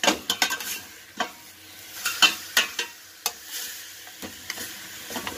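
A metal ladle scraping and clinking against a stainless-steel stockpot in a run of sharp knocks, while pork bones sizzle in their own released juices over high heat. The juices are being ladled off to rid the pork of its gamey smell before boiling.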